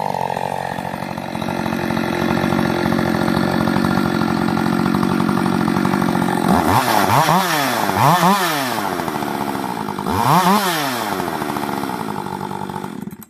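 Rebuilt Husqvarna 562 XP two-stroke chainsaw engine idling steadily, then revved in several quick throttle blips in the second half, each falling back to idle, before it cuts off suddenly at the end. The owner takes its running for the sign of a small air leak.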